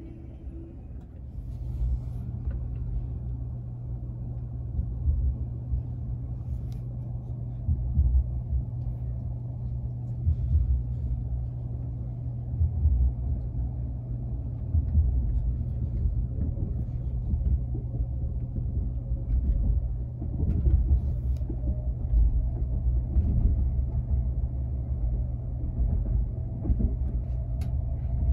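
Low steady rumble and hum of a Sapsan high-speed electric train (Siemens Velaro RUS) running on the rails, heard from inside the passenger car. It grows louder about a second and a half in.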